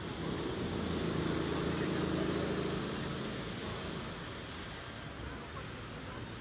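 Engine hum of a passing motor vehicle, swelling to its loudest about two seconds in and then fading away, over a steady background hiss.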